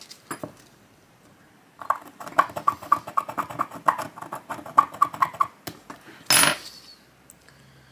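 Hand-sanding a small steel rifle part on 1200-grit sandpaper: a run of quick, short scratchy strokes starting about two seconds in and stopping near six seconds, then one brief louder rustle.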